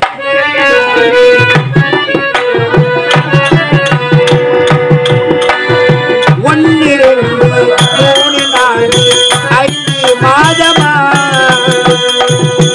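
Harmonium playing a melody over a held drone note, with a mridangam beating a quick, steady rhythm underneath: the live accompaniment of a Tamil village stage drama.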